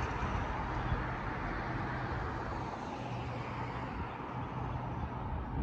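Steady distant rumble of vehicles, easing slightly near the end.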